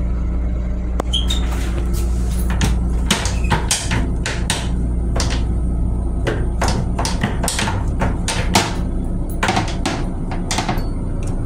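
Steady low rumble inside a Metro-North M7 railcar's lavatory, with frequent irregular knocks and rattles, as the toilet's plastic seat is lifted by hand.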